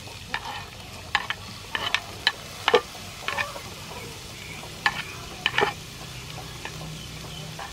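Shredded ginger sizzling as it drops into a wok of hot soybean oil, with a dozen or so sharp taps and scrapes of a metal spoon pushing it off a wooden board.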